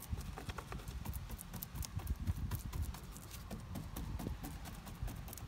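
Resin-laden paintbrush dabbing and stippling glass-fibre matting onto a fibreglass panel: a run of irregular soft pats and light taps.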